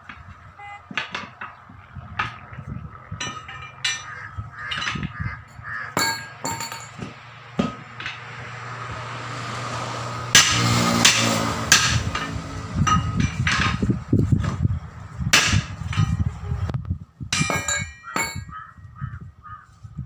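Steel tyre levers knocking and clinking against a steel wheel rim as a 7.50-16 tyre's bead is prised over it by hand, in irregular metallic strikes. A rushing noise swells and is loudest about halfway through.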